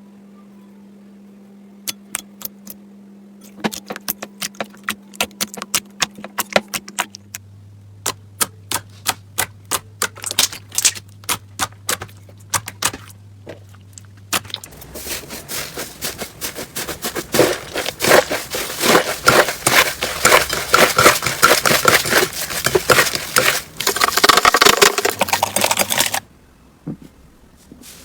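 Slime being squished and pressed, popping in sharp clicks, first a few at a time and then in quick runs. About halfway through it turns into dense, continuous crackling that stops abruptly near the end.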